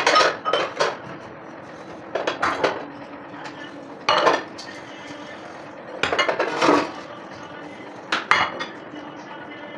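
Dishes clattering as they are washed by hand: ceramic cups and bowls clinking and knocking against a stainless steel basin, in about five short bursts a couple of seconds apart.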